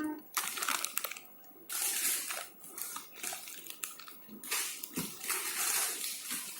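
Plastic snack wrappers crinkling and rustling as packs are handled, in several bursts of about a second each.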